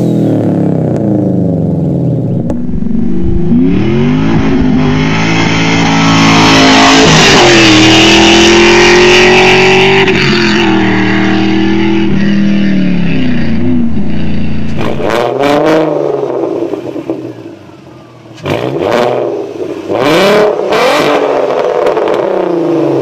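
A 2005 Subaru Impreza WRX's exhaust revving. Then a 1999 Pontiac Firebird Trans Am's LS1 V8 through a Magnaflow exhaust runs hard for about ten seconds, its pitch rising and then falling away. Last, a Volkswagen Golf R32's VR6 exhaust is revved in four or so short blips.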